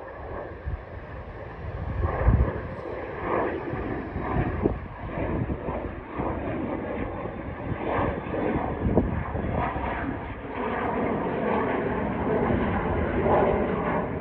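Engines of a small jet climbing after takeoff, a steady rushing engine noise with a fluttering crackle. It grows louder over the first couple of seconds, then holds.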